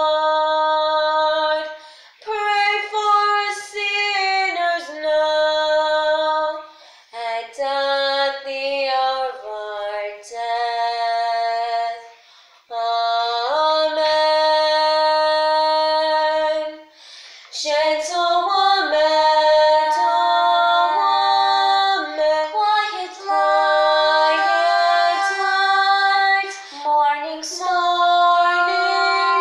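Two girls singing a slow song a cappella, holding long notes with short breaths between phrases.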